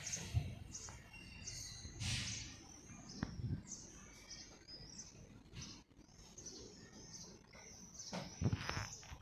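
Small birds chirping in short repeated phrases, with low rustles and thumps; the loudest rustle comes about eight and a half seconds in.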